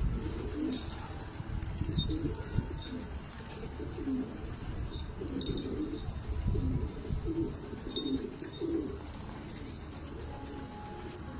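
Domestic pigeons cooing, many short overlapping coos in a steady stream, with faint high chirping above them.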